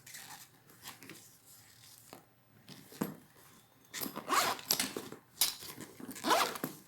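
Handbag zipper being pulled, a few quick sweeping strokes in the second half, after soft handling noises of the bag.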